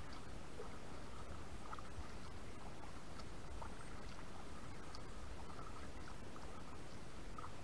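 Water lapping against a kayak hull with small splashes, over steady wind rumble on the camera's microphone.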